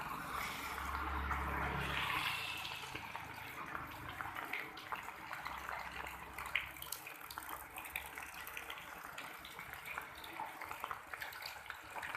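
Rain falling and splashing, a steady hiss with many small sharp drop impacts, a little louder in the first two seconds or so.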